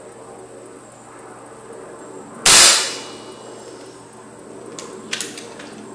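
.22 FX Dreamline PCP air rifle firing a single 24-grain slug: one loud, sharp report about two and a half seconds in, dying away within half a second, followed a couple of seconds later by a few quick sharp clicks.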